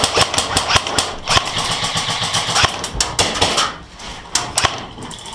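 Rapid airsoft gunfire: a dense rattle of shots at machine-gun pace for the first three and a half seconds or so, then easing off to a few scattered shots.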